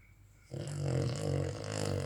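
Dog snoring loudly: one long snore begins about half a second in and carries on past the end.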